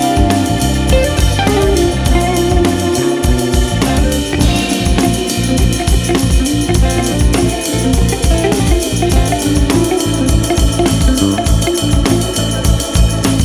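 Background music with a drum beat and keyboard.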